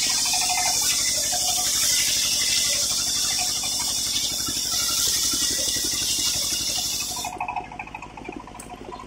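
Circular saw blade ripping lengthwise through a teak beam: a loud, steady high hiss of cutting that starts at the outset and stops about seven seconds in. Under it, the motor driving the saw hums steadily throughout.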